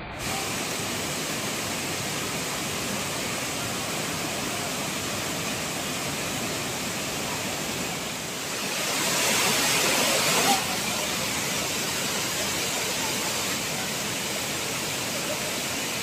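Waterfall and stream water rushing steadily over rocks. Just past the middle it grows louder for about two seconds, then drops back suddenly.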